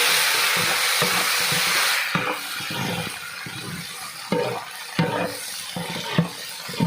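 Ginger-garlic paste frying in hot oil in a large cooking pot: a loud sizzle for about the first two seconds, easing into a quieter sizzle broken by the knocks and scrapes of a ladle stirring it.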